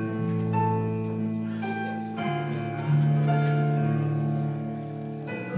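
Live church worship band with electric guitar and bass guitar playing an instrumental passage of slow, held chords. The chord changes about two seconds in and again near the end.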